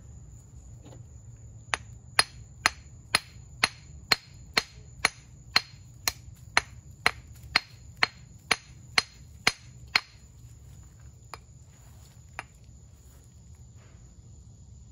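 Small hammer tapping on a fossilized clam held in the hand, about two sharp strikes a second for some eight seconds, then two lighter taps. The hammer is chipping the rock open to expose the calcite crystals inside.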